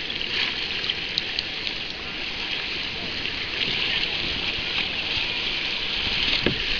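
Sea water lapping and trickling around a kayak close to the microphone: a steady hiss with faint small splashes.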